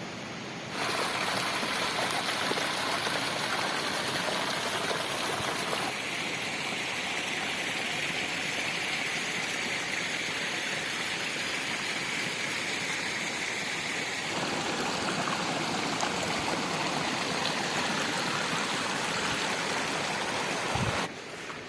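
Running water from a stream, a steady rush whose tone and loudness change abruptly a few times.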